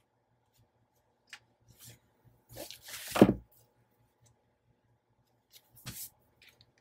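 Hands handling paper and craft pieces on a work surface: a few scattered rustles and clicks, with a soft thump about three seconds in and a smaller one near six seconds.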